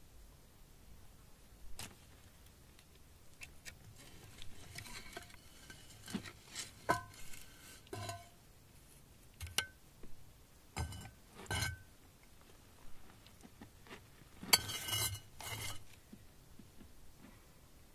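Irregular hard clicks and clacks of stones knocking together, several with a short ringing tone, and a louder cluster of knocks near the end.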